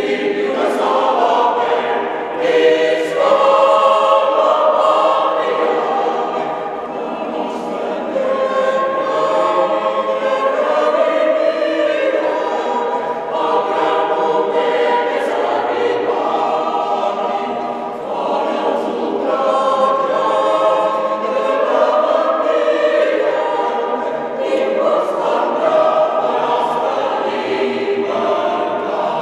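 Mixed choir of men's and women's voices singing unaccompanied, in sustained chords phrase after phrase, in a church.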